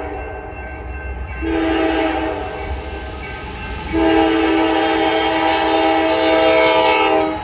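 Locomotive air horn on the lead unit of CSX freight B616, sounding its chord of several notes for a grade crossing. A louder short blast comes about a second and a half in, and a long blast starts about four seconds in and cuts off just before the end. A low rumble from the approaching train runs underneath.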